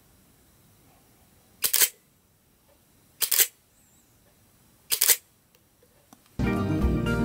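Pentax single-lens reflex camera fired three times, about a second and a half apart. Each release is a quick double clack of the mirror and shutter.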